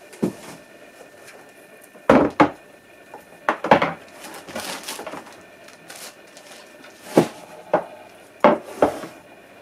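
Handling noise from a plastic pond fountain pump and its coiled power cable being set down and moved about on a counter: a series of irregular knocks and clatters with a short rustle in the middle.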